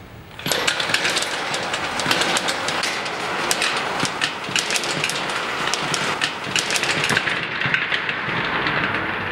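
A train running on rails: a steady rush of noise with dense metallic clattering, starting abruptly about half a second in.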